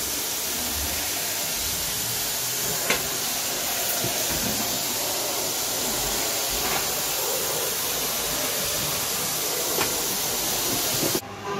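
Steady loud hiss with a few faint clicks, cutting off abruptly near the end.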